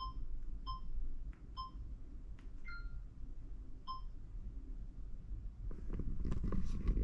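Short electronic menu beeps from a hotel room TV as its on-screen information menu is stepped through with the remote: four identical short beeps and, about three seconds in, a two-note falling beep. Near the end, a burst of rustling and knocks.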